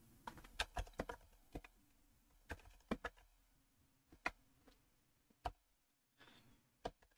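Faint computer keyboard keystrokes: about a dozen short, irregular taps, most of them in the first three seconds, then a few spaced-out ones.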